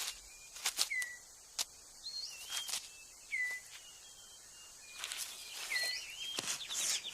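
Rainforest ambience: short whistled bird notes, several sliding down in pitch, over a faint steady high insect tone, with sharp scattered snaps and rustles of leaf litter as a male six-plumed bird of paradise clears his display court.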